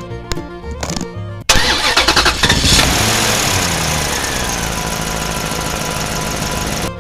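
Background music, then about a second and a half in a loud truck engine sound effect cuts in: the engine starts, revs, and its pitch falls to a steady idle.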